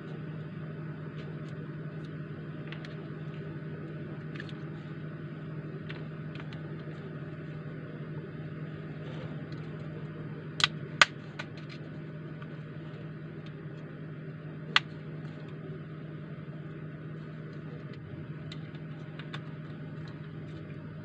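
Steady mechanical hum, like a running fan, under faint scattered clicks, with three sharper clicks around the middle: small tools and parts handled while a Redmi Y2 phone is being taken apart.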